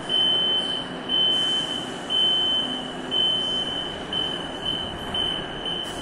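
Metro door-closing warning signal: a high, steady beep repeating about once a second, six times, over the hum of a train standing at the platform, as the doors close.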